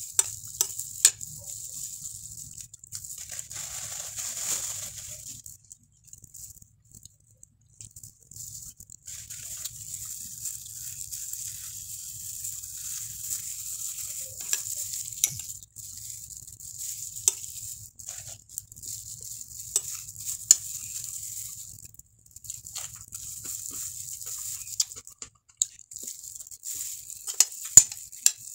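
Close-up eating sounds: a spoon clinking and scraping on a plate as tilapia and rice are picked apart with a plastic-gloved hand, with chewing in between. The clinks come as scattered sharp clicks, a few much louder than the rest, over a steady high hiss.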